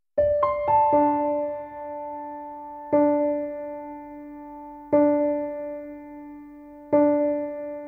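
Background music on a soft piano-like keyboard: a few quick notes at the start, then a chord struck about every two seconds, each left to fade away.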